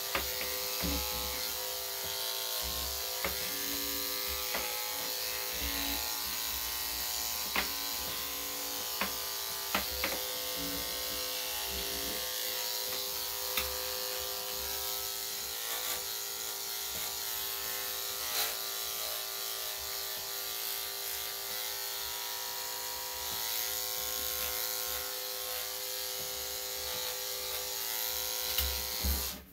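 Electric dog grooming clippers fitted with a #5 blade, running steadily with a constant hum as they clip a small dog's coat, with a few faint clicks.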